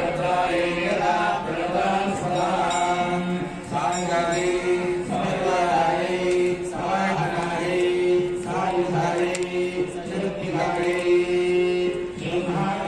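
Sanskrit mantras of the Chandi homam chanted, several syllables held long at a steady pitch.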